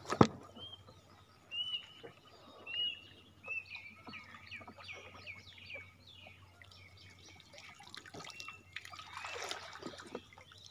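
Water trickling and swishing around a banana-trunk raft being poled through floodwater, with a sharp knock right at the start and a swell of splashing near the end. A bird chirps a quick series of short notes through the first half.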